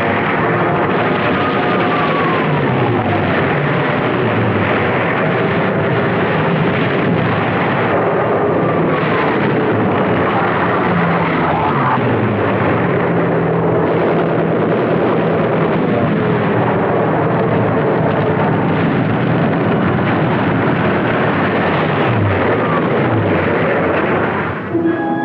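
Propeller warplanes' piston engines running in numbers, a dense, steady engine noise with a falling pitch again and again as planes pass or dive.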